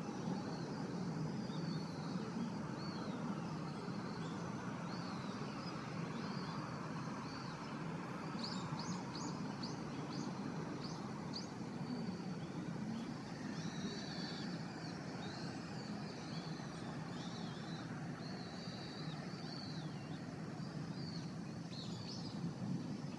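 Steady distant engine drone, which the uploader takes for a motorised paraglider flying near the summit, with small birds chirping over it and a quick run of chirps about nine to eleven seconds in.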